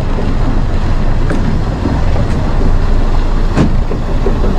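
Steady rumble of a boat running over the water, with a single knock about three and a half seconds in.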